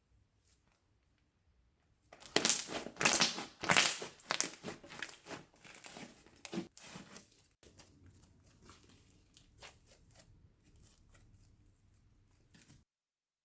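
Hands squishing and stretching slime, making a dense run of crackling and popping clicks. The clicks start about two seconds in and are loudest for the next five seconds. They then thin out and grow fainter until the sound cuts off near the end.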